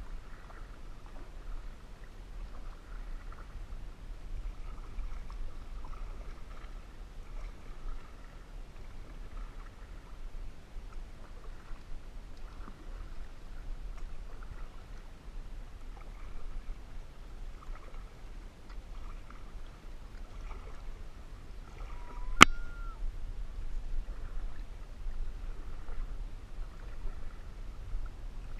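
Canoe paddle strokes: soft, repeated dips and splashes of the paddle in lake water over a steady low hum. About three-quarters of the way through there is one sharp knock, the loudest sound, like the paddle striking the canoe's hull.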